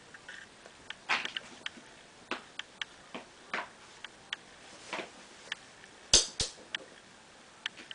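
Kittens' claws and paws clicking and tapping irregularly on a laminate floor as they scamper and play, with two louder thumps in quick succession about six seconds in.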